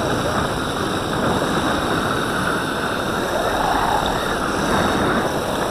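Steady rushing noise of riding on an electric mountainboard: wind on the microphone and the pneumatic tyres rolling over asphalt.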